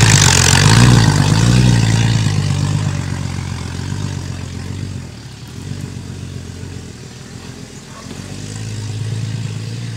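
Off-road 4x4's engine revving hard as it pushes through mud and undergrowth, the revs rising and falling over the first couple of seconds. It then runs quieter as the vehicle moves away and revs up again near the end.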